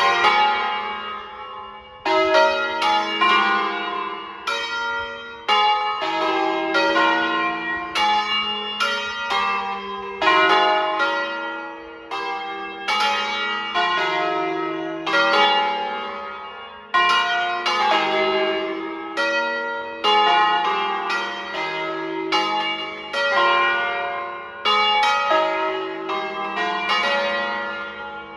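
Peal of five swinging church bells tuned in E-flat, cast by Crespi in 1853, ringing a short solemn 'concerto' sequence. Strikes of different bell notes come about once a second, each ringing on and fading under the next.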